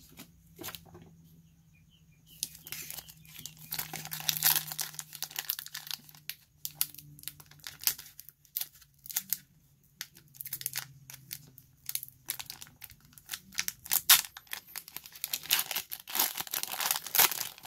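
Foil booster-pack wrapper crinkling and tearing as it is worked open by hand, in irregular bursts of rustling from about two seconds in.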